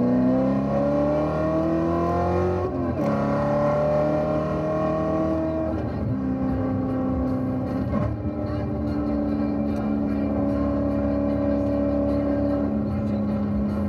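C7 Corvette Z06's supercharged 6.2-litre V8 pulling hard under acceleration, rising in pitch through the gears with upshifts about three seconds and six seconds in. It then holds a fairly steady engine speed.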